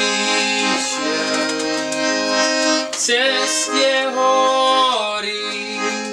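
Accordion playing a tune in sustained chords that change every second or so; the playing cuts off abruptly at the end.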